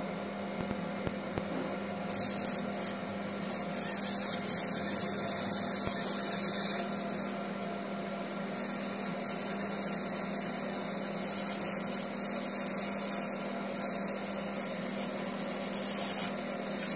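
Laser marking machine engraving text into a metal medal: a high hissing from the beam on the metal starts about two seconds in and stops briefly twice, over a steady machine hum.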